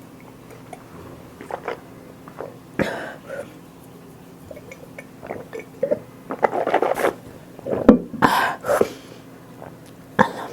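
Close-miked eating sounds: scattered bites, chewing and mouth clicks, coming thicker and louder in the second half.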